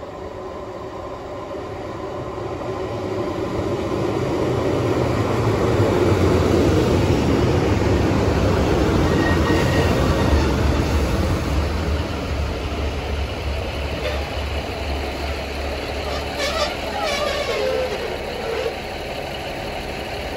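Class 156 Sprinter diesel multiple unit pulling into the platform: a growing rumble of wheels with the low drone of its underfloor diesel engines, loudest about six seconds in, then easing as it slows. Short squeals that fall in pitch come in near the end as the brakes bring it to a stop.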